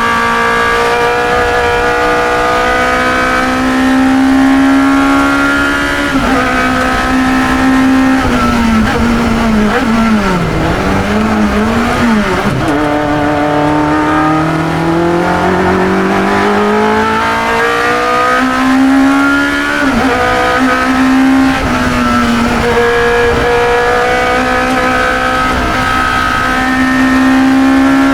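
1972 Chevron B21 two-litre sports racer's engine at racing speed, heard onboard: held high in its revs, then dropping sharply with blipped downshifts about ten seconds in, and climbing back up through the gears with quick upshifts.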